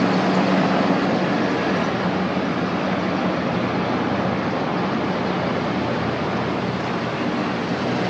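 A formation of many military helicopters flying overhead: a steady drone of rotors and engines that eases slightly as the formation passes.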